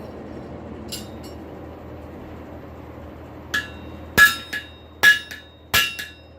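Hammer blows ringing off a 211-pound solid steel anvil, driving a punched slug out through the pritchel hole. A couple of light taps come about a second in, then four hard strikes from just past halfway, about one every 0.7 s, each leaving a bright metallic ring.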